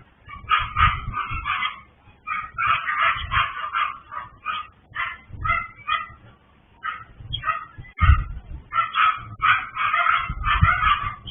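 Small dogs barking and yapping in quick runs of high, sharp barks with short pauses between them: the nuisance barking of a breeder's kennel housing many small dogs.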